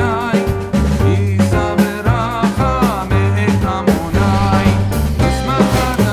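Background music with a drum beat, a bass line and a wavering melody.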